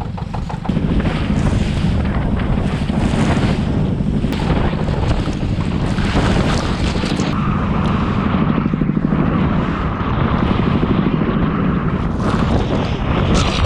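An engine running steadily under load, with a fast even pulse in its low drone; it gets louder about a second in. Heavy wind buffets the microphone over it.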